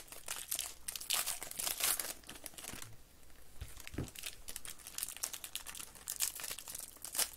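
Foil wrappers of Panini Spectra baseball card packs crinkling and tearing as they are ripped open by hand. The crackling thins out briefly about three seconds in, and there is a single thump about four seconds in.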